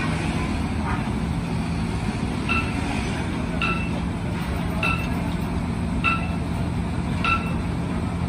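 Hydraulic press straightening a bent excavator hydraulic cylinder rod: a steady low machine hum, with five short ringing metallic pings evenly spaced a little over a second apart starting a couple of seconds in.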